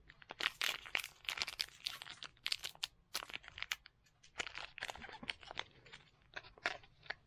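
Foil wrapper of a Pokémon booster pack crinkling as it is squeezed and turned in the hands: a dense run of irregular crackles.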